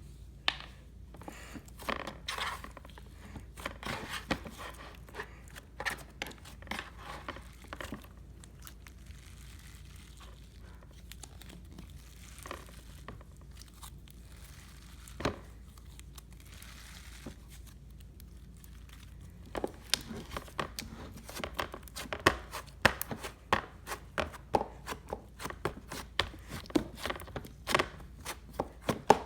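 Slime with clay and glitter mixed in being kneaded and stretched by hand, giving irregular crackling and popping clicks. The clicks come thick for the first several seconds, thin out through the middle, and crowd together again in the last third.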